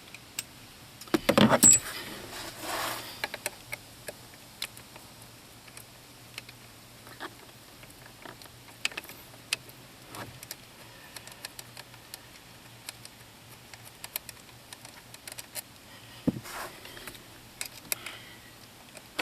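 Metal hand tools and loosened steering-motor bolts clinking and clicking: a louder clatter about a second in, then scattered small metallic clicks as the work goes on.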